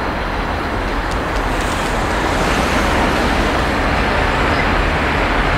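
Two G class diesel-electric locomotives, each with an EMD two-stroke V12 diesel engine, approaching at the head of a freight train: a steady engine rumble that grows louder about two seconds in.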